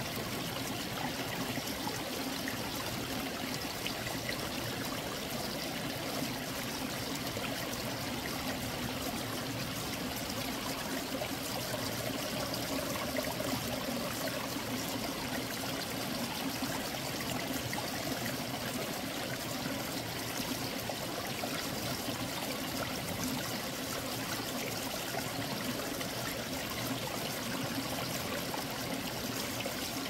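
Mountain valley stream flowing steadily over rocks, a continuous rush of running water that sounds like beads rolling.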